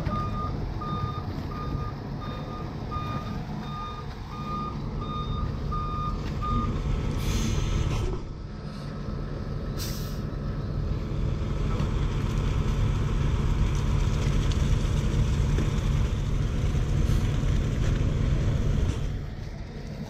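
Concrete mixer truck's reversing alarm beeping steadily over its idling diesel engine, stopping about seven seconds in. Then two short air hisses, about three seconds apart, as the air brakes are set. The diesel engine runs on, louder in the second half, and drops away near the end.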